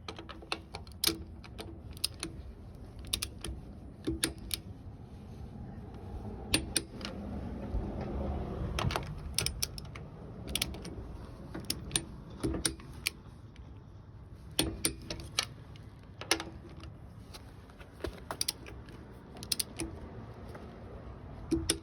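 Pittsburgh 1/2-inch click-type torque wrench tightening wheel lug nuts to spec: sharp metallic clicks at irregular intervals, some with a brief ring.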